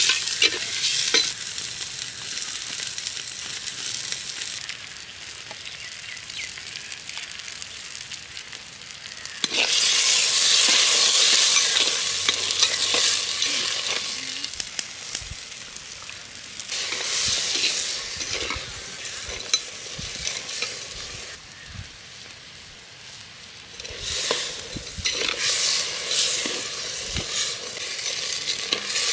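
Crab pieces frying and sizzling in an earthen clay pot, stirred with a metal spoon that scrapes against the pot. The sizzle swells louder several times as the pieces are turned.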